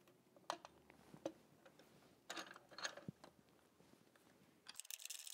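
Faint clicks and light knocks of a refractor telescope tube being handled and set into its tube rings on the mount: a few scattered taps, then a short flurry of clicks in the middle. Near the end the low background drops out abruptly, and quick faint ticking follows.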